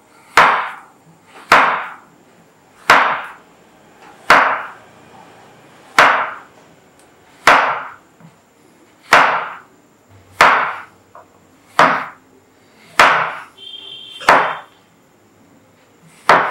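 Chef's knife chopping a block of dark chocolate on a wooden cutting board: about a dozen sharp chops, one roughly every second and a half.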